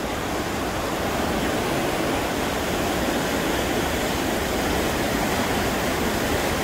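The River Goyt in fast flow after a flood, its brown water rushing and churning as white water in a steady, loud roar.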